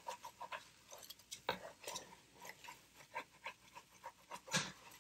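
A wooden spatula stirring uncooked basmati rice through spice paste in a large metal pot: a run of short, irregular scraping and rustling strokes, two of them louder, about a second and a half in and near the end.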